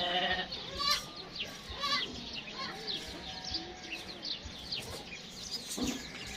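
Goats bleating, with a short bleat near the start, over many small birds chirping.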